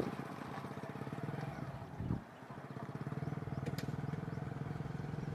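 An engine running steadily with a fast, even pulse, briefly dipping after a thump about two seconds in.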